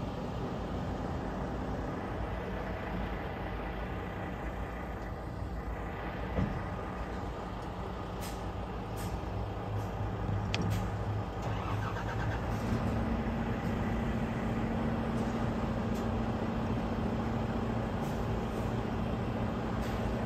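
Diesel truck engines idling, a steady low running sound. A steady engine hum sets in a little past halfway, and there is one knock about six seconds in.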